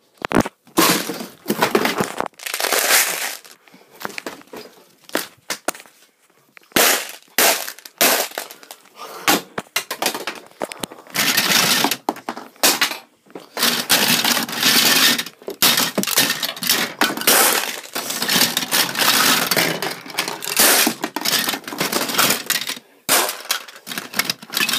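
Plastic marble run pieces being handled and fitted together, clattering and clicking in irregular bursts with short pauses between them.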